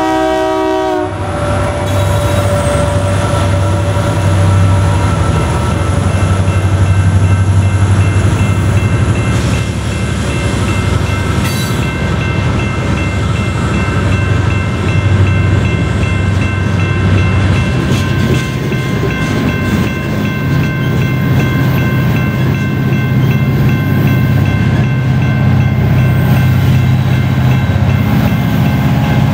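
Freight train passing close by: a locomotive horn cuts off about a second in, then the diesel locomotives rumble past and coal hopper cars roll by with wheel noise and faint steady ringing tones. In the second half the low diesel rumble grows again as more locomotives mid-train approach.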